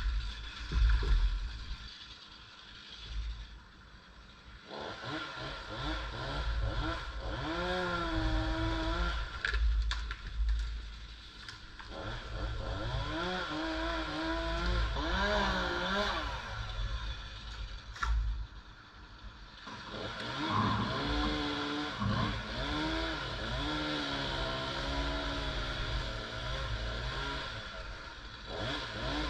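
Chainsaw running in three spells, its pitch wavering up and down, with quieter gaps and scraping and clatter in between.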